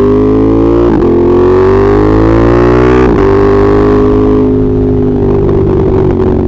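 Ducati Monster 1200S V-twin accelerating under load, its pitch climbing and dropping at upshifts about one and three seconds in, then settling into a steady cruise for the rest.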